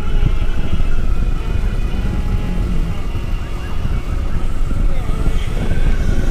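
An emergency siren wailing, its pitch sweeping up and down, over the steady engine and road rumble of a moving motorcycle.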